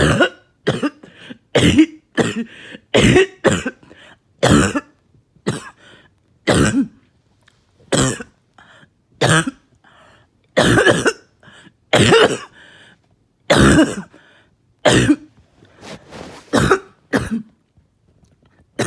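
A person's wet, productive coughing fit: about twenty short coughs in runs with brief pauses, with really thick mucus breaking up and coming out as medication loosens it.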